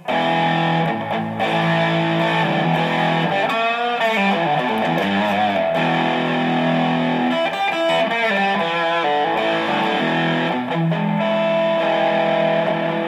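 Electric guitar played through a ProCo Rat distortion pedal with the distortion about three-quarters up: held distorted chords, with a run of bending notes about four seconds in.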